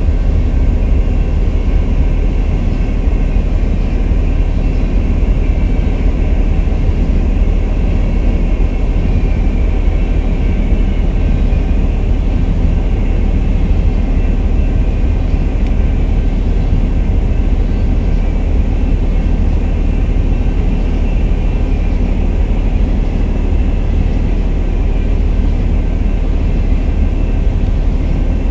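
Freight train cars, a boxcar and then tank cars, rolling past close by. The wheels on the rails make a steady, unbroken rumble.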